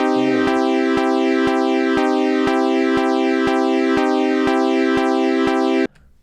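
Logic Pro's Retro Synth, a software analogue-style synthesizer, playing a loud looped progression of sustained chords that change about every two seconds, with a steady click about twice a second. It cuts off suddenly near the end.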